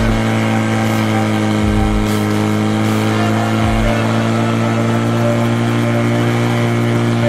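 Portable fire pump engine running steadily at high revs under load while it feeds water to two hose jets, its pitch sagging slightly about halfway through.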